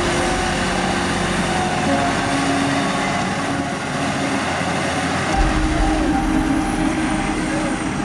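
Case IH Puma tractor engine working under load as it pulls a loaded tipper trailer through soft mud, with a steady whine whose pitch steps down and back up a couple of times and a deep rumble that briefly drops away midway.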